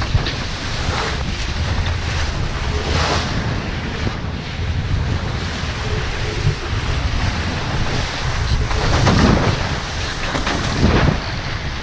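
Wind blowing over the microphone and sea water rushing past a sailing catamaran's hulls in rough, rolling seas, with a few louder surges of waves.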